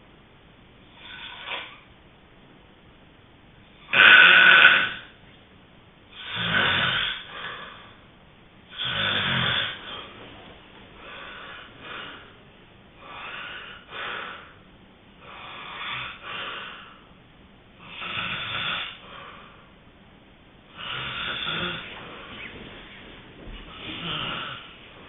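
A sleeping person snoring: a steady run of snores about every two to three seconds. The loudest is about four seconds in, and the later ones are softer, some of them in two parts.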